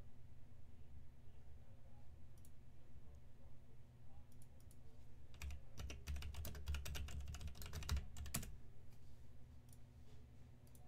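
Typing on a computer keyboard: a quick run of key clicks lasting about three seconds in the middle, over a low steady hum.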